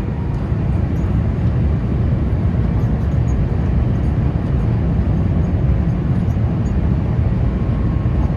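Steady cabin noise of an Airbus A350-900 in flight: a loud, even rumble and rush of airflow and engines, heaviest in the low range.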